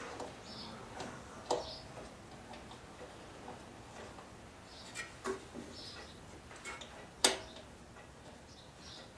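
Scattered sharp clicks and light knocks, as of tools and small parts being handled, the loudest about seven seconds in. Short faint high chirps come between them.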